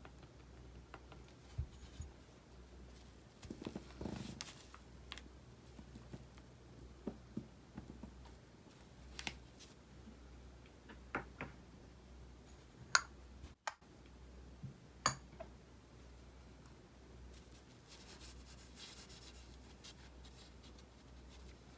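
Faint scattered taps and clicks of tools being handled on a felt-covered table, with two sharper clicks about two seconds apart a little past halfway. Near the end comes the faint scratch of a fine brush writing a signature on paper.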